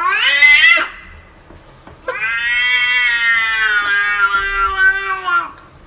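Domestic cat meowing: a short call rising in pitch that breaks off just under a second in, then one long drawn-out yowl lasting about three and a half seconds.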